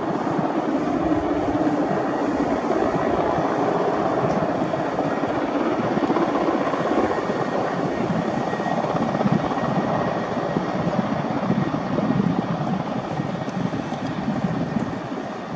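Mil Mi-17 twin-turboshaft helicopter hovering low and air-taxiing on arrival: a steady, loud rotor beat over the rushing noise of its turbines.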